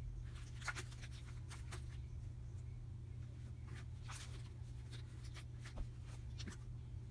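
Blue glitter slime being stretched and squished by hand: scattered short sticky crackles and pops, with a soft thud near the end as it is pressed down on the table, over a steady low hum.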